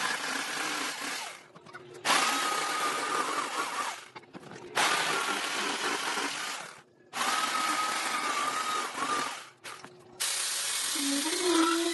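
Corded electric jigsaw sawing through a wooden board in runs of about two seconds, stopping and starting several times. A steady high motor whine rides over the rasp of the blade.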